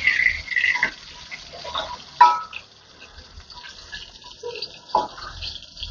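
Tongkol fish frying in hot oil in a wok, sizzling steadily as a metal spatula turns the pieces over. The spatula clacks sharply against the wok about two seconds in, and again more softly near the end.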